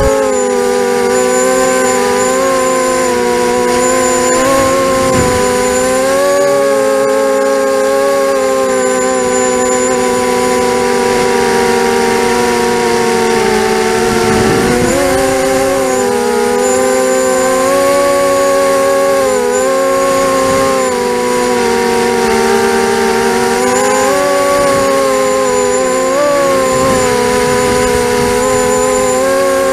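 Panda 280 racing quadcopter's four T-Motor 1804 brushless motors and propellers whining steadily, heard close up from a camera on the frame. The pitch wavers up and down as the throttle changes and dips briefly about halfway through.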